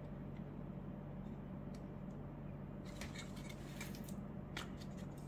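A few faint clicks and taps of polymer parts, mostly in the second half, as the stock pin of a CAA Micro Roni conversion kit is pushed out with a nail and the folding stock is pulled off.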